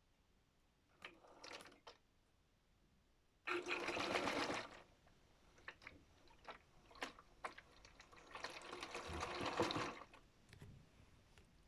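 Modified Miele W1 toy washing machine running in short bursts of about a second each, its small motor turning the drum. There are three bursts, the loudest about three and a half seconds in, with light clicks between them.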